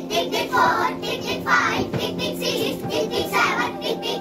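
Music with a child's singing voice over steady held notes.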